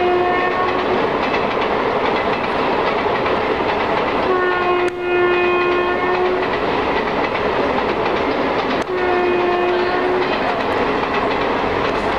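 Indian Railways locomotive horns sounding over the steady clatter of passing train wheels on the track. There is a short blast at the start, then two longer blasts of about two seconds each, a little under halfway and about three-quarters of the way through.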